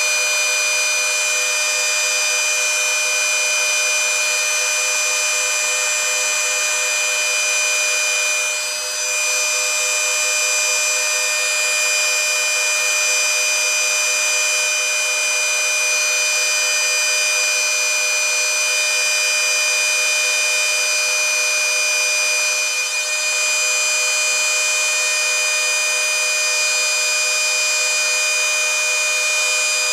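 Four trim routers (Kobalt, Makita RT701C, Bauer and a cheap clone) running together at top speed without cutting: a steady, high-pitched multi-tone motor whine that dips briefly twice.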